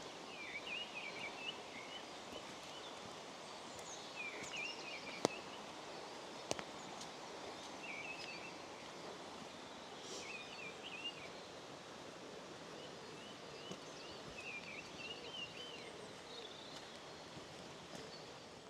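Woodland songbird singing short warbling phrases every few seconds over a steady background hiss, with two sharp knocks near the middle.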